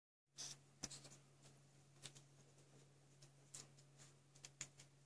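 Near silence: a faint steady low hum with a few soft, scattered clicks and rustles.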